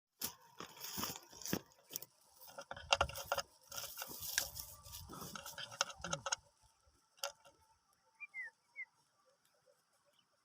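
Dense clicking and rattling for about six seconds, then a single sharp click and three short, quick chirps falling in pitch, typical of a sooty-headed bulbul calling.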